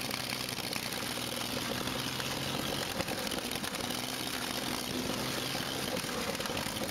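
An engine running steadily, with a hiss spread over it.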